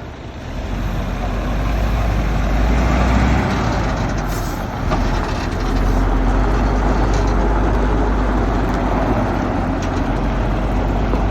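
Loud, steady machinery running, with a deep rumble under an even noise and a brief dip about halfway through.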